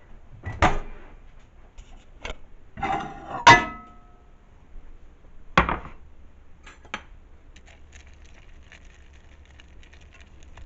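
Kitchen clatter: a handful of separate knocks and clinks as a bowl and spoon are handled. The loudest is a clink that rings briefly, about three and a half seconds in.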